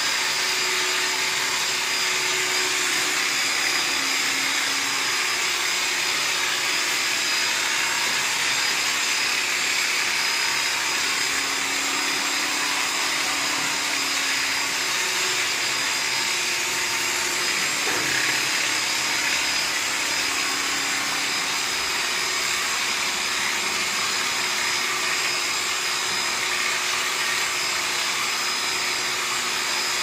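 Handheld electric sheep-shearing clipper running steadily as it cuts through the fleece, a continuous motor buzz with a steady high whine.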